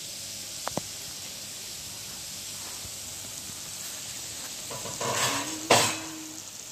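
Tomatoes, onions and chillies sizzling steadily in oil in a kadai, with two light clicks of the glass lid about a second in and a louder sharp knock near the end.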